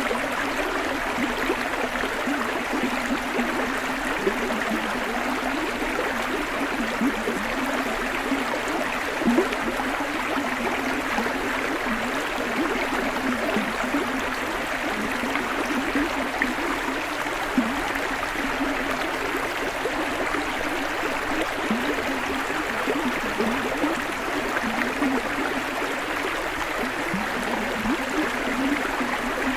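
A shallow river rushing over stony riffles: a steady, even rush of water with small gurgles.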